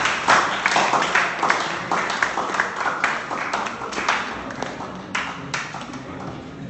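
A class of students applauding, dense clapping that thins to a few scattered claps and dies away over the last couple of seconds.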